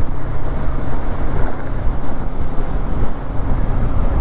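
Motorcycle riding at highway speed: a steady low engine hum under heavy wind rush on the rider's microphone.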